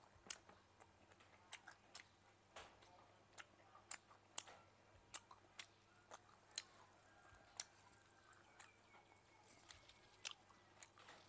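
Close-miked chewing and crunching of roasted frog: scattered, irregular sharp crackles and clicks of crisp skin and small bones, about one or two a second.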